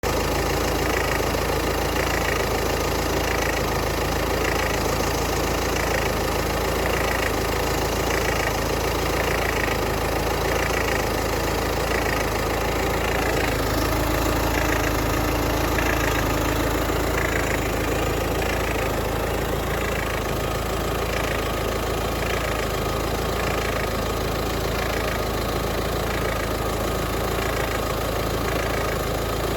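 A 1.6 HDi four-cylinder turbodiesel engine idling steadily, with a strange higher-pitched chirp repeating at an even beat, about one and a half times a second, over the running.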